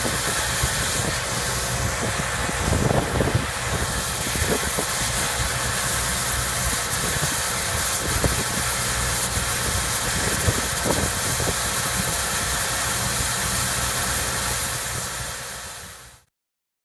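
Oxy-fuel cutting torch on a track-mounted pipe beveler hissing steadily as it cuts a bevel into a steel pipe end, with a few short crackles and a low, steady engine hum underneath. The sound fades out over the last two seconds.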